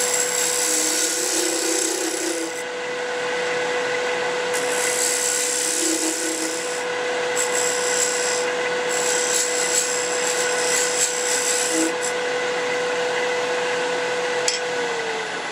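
A wood lathe runs with a steady hum while a turning tool cuts a bead into a spinning piece of dry old mahogany, scraping in several passes. Near the end the cutting stops and the hum falls in pitch as the lathe slows.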